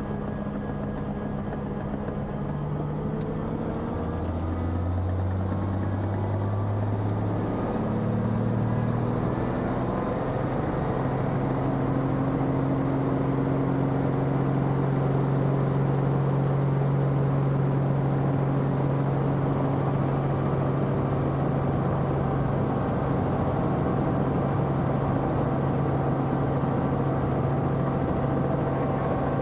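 Helicopter engine and rotor running, heard from inside the cabin, rising in pitch over the first ten seconds as it spools up, then holding a steady drone.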